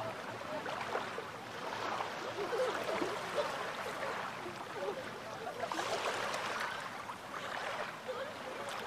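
Small Baltic Sea waves lapping at the shoreline: a steady wash of water with frequent little gurgles and splashes.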